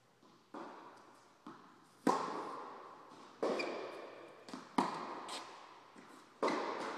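Tennis rally: a ball struck back and forth by rackets and bouncing on the court, about eight sharp pops of varying loudness. Each pop echoes on in a large indoor hall.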